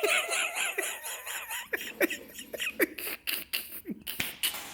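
A man laughing in short, broken, breathy bursts, trailing off into scattered sharp breaths and clicks.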